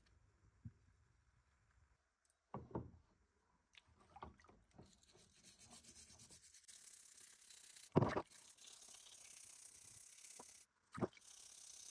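Wire brush scrubbing a rusty hammer head in a basin of water, scouring off rust loosened by electrolysis: a steady scrubbing rasp with a few sharp knocks, the loudest about eight seconds in.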